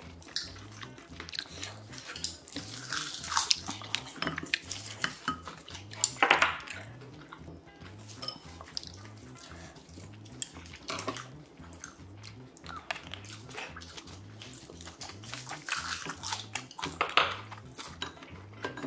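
Eating sounds: wooden chopsticks and a wooden spoon clicking against ceramic bowls as food is picked up, mixed with chewing and slurping. The clinks come in irregular clusters, with the loudest bunches a few seconds in, around six seconds in, and near the end.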